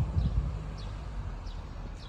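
A bird calling with short, high, falling chirps repeated about every half second, over a low rumble with a few bumps in the first half second.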